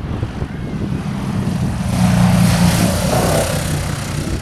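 Cessna 170's six-cylinder piston engine and propeller droning in a low fly-by, growing louder to a peak a little past halfway through, then easing off as the plane passes.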